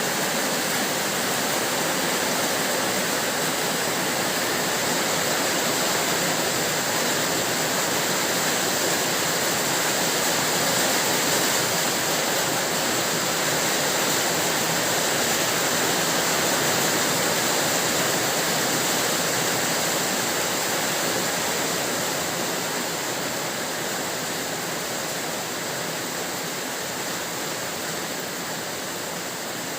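Steady heavy rainfall, an even hiss of falling water that eases slightly about two-thirds of the way through.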